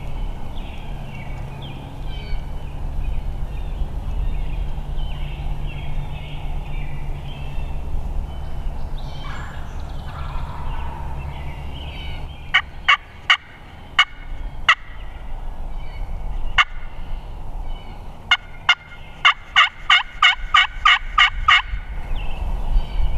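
Turkey yelps: a few single yelps from about halfway through, then a fast run of about a dozen, roughly four a second, near the end. A low steady rumble fills the first half.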